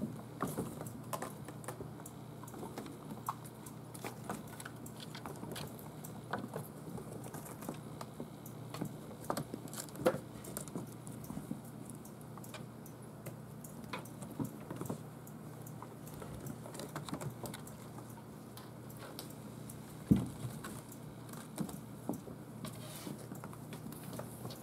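Six-week-old kittens scampering and playing on a hardwood floor and a carpeted cat tree: scattered light taps and scuffles of small paws, with a few sharper knocks, the loudest about ten seconds in and again about twenty seconds in.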